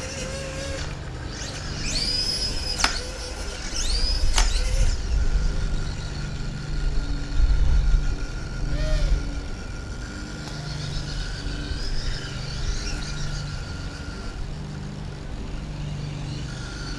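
Pan-and-tilt motors and gear train of a DIY antenna tracker running as the head turns. About two to four seconds in, several whines rise in pitch, hold and fall away as the motors speed up and slow down, followed by a long steady whine.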